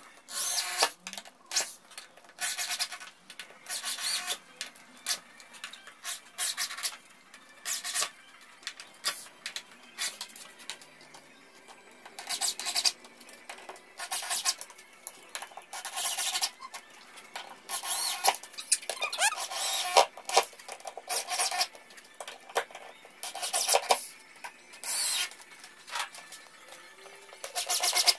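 Corded electric drill driving screws into plywood in many short bursts, the trigger pulsed on and off with pauses between each screw. Once or twice the motor's whine audibly rises as it spins up.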